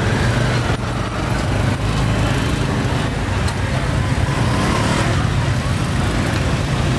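Busy street traffic: motorbikes and cars running close by, a steady low engine rumble under a general road hiss.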